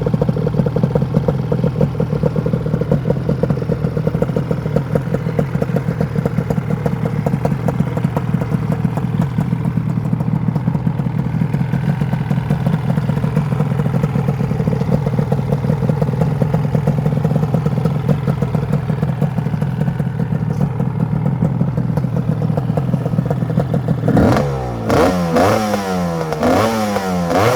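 Lambretta scooter's twin-cylinder two-stroke Monza Chimera engine idling steadily with a fast, even pulse, then revved in several quick throttle blips, each rising and falling, over the last few seconds.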